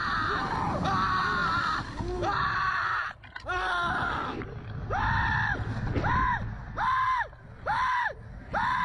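A rider on a slingshot amusement ride screaming over and over, long high 'ahhh' cries at first, then shorter rising-and-falling 'woooo' yells about every second near the end, over a steady low rumble.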